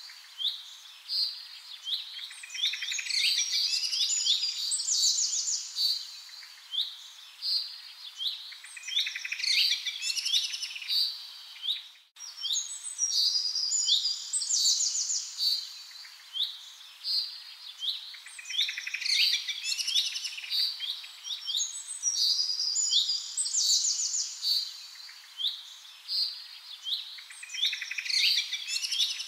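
Birds chirping in quick, high runs of notes. The same stretch of birdsong repeats about every twelve seconds, with a brief break near the middle where the recording loops.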